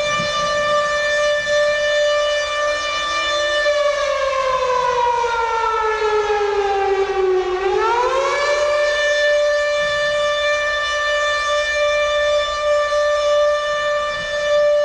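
Siren wail holding one steady pitch, then sliding down in pitch for a few seconds about a third of the way in, swooping quickly back up and holding steady again.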